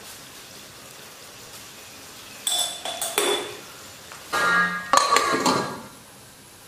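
Stainless steel pan lid clanking against a pan as it is handled and set on, several sharp metal knocks with a brief ringing tone over about three seconds in the middle, after a faint steady hiss.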